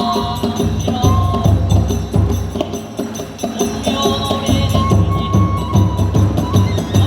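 Kagura hayashi accompaniment: a bamboo transverse flute playing a wavering melody over a steady, fast beat of taiko drums and jingling small hand cymbals.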